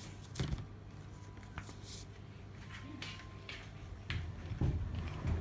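Room tone: a low steady hum with scattered faint clicks and rustles, and a low rumble about four seconds in.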